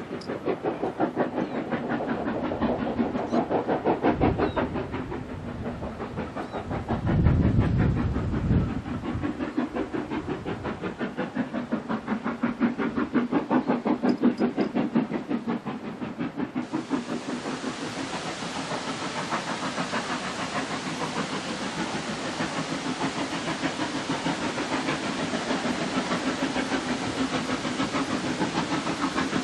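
Steam locomotive working a train, its exhaust beats coming in a quick, even rhythm, with a brief low rumble about seven seconds in. About two-thirds of the way through it switches to a nearer engine, Southern Railway S15 4-6-0 No. 825, whose exhaust beats sound brighter and closer.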